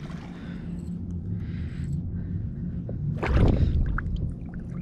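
Low steady rumble around a kayak on the water, with a louder brief splash about three seconds in as a pike bait is thrown out behind the kayak and lands in the water.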